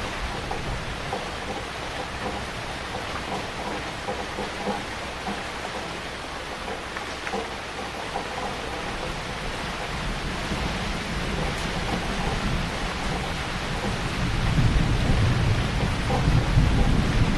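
Heavy rain falling steadily, with a low rumble of thunder swelling up near the end.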